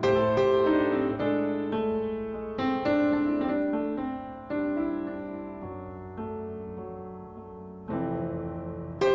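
Background piano music: a slow, gentle tune of single notes and chords, each struck and left to fade.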